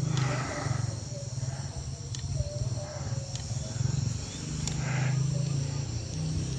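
Outdoor ambience: a steady high-pitched insect drone under a low rumble that swells and fades twice, with a few faint clicks.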